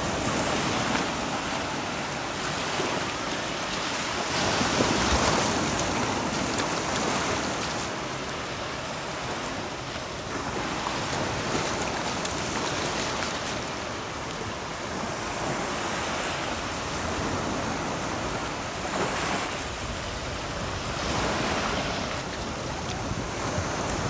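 Sea waves washing onto the beach in slow surges, with wind rumbling on the microphone.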